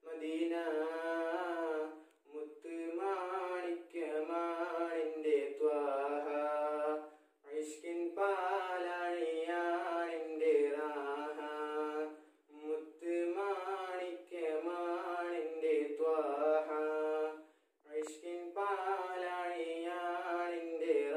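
A teenage boy singing an unaccompanied Islamic devotional song. He sings in phrases of two to three seconds with short breaks for breath, and the pitch winds ornamentally through each held note.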